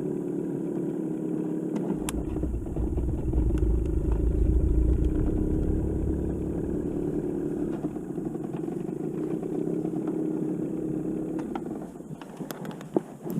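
Boat motor running steadily under way, with a deeper rumble swelling in the middle; it cuts out shortly before the end.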